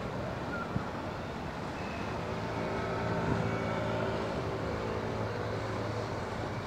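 A small motorboat engine running steadily, coming up about two seconds in, loudest in the middle and easing off near the end, over a steady rush of wind and outdoor noise. A single short knock just under a second in.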